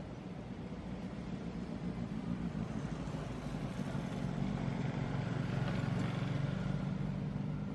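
A low engine hum, steady in pitch, growing louder through the middle and easing off near the end.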